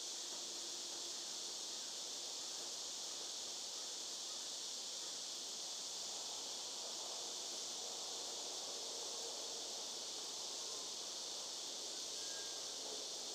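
Steady, high-pitched drone of an insect chorus, with faint, irregular scraping of a hand chisel cutting into a wooden cane stem.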